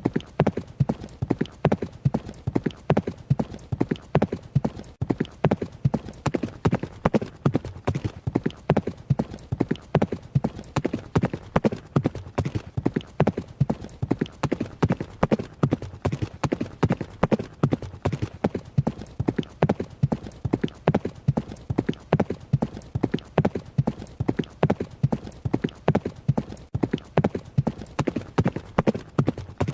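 Horse's hooves striking the ground at a run: rapid hoofbeats, several a second, in a steady repeating rhythm.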